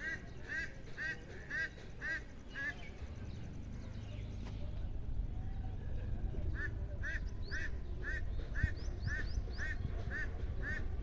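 An electronic warning alarm chirping about twice a second in short, even, quack-like beeps. It stops for a few seconds midway and then starts again, over a low rumble of traffic.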